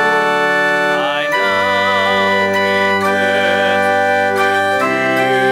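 Organ accompanying a congregational hymn: slow held chords, some notes wavering, changing chord twice.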